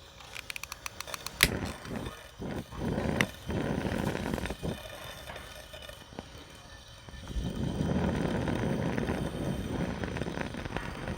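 A pressurized Coleman 242B lantern's burner sputtering in irregular spurts, with a steadier rush in the second half. It struggles to keep the fuel coming, which the owner takes for a problem with the fuel pickup valve.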